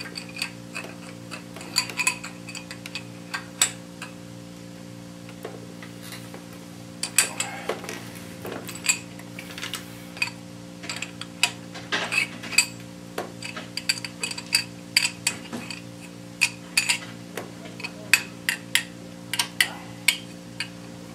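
Hand ratchet clicking in short, irregular runs as the oil pump-to-block bolts on a Ford 302 V8 are tightened, the torque judged by feel. A steady low hum runs underneath.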